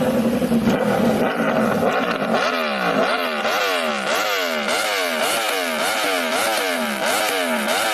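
Aprilia RSV4's V4 engine through an SC-Project aftermarket exhaust, running steadily, then revved in quick repeated blips from about two seconds in, about two a second, its pitch rising and falling with each blip.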